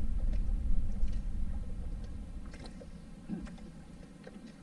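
Low rumble of an outrigger boat under way, fading steadily as the boat slows on arrival at the fishing spot, with scattered faint clicks and knocks.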